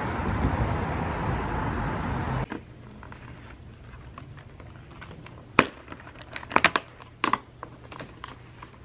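Outdoor street noise with traffic that cuts off abruptly about two and a half seconds in. Then a quiet room where hands open and handle a cardboard box, making a few sharp clicks and crinkles.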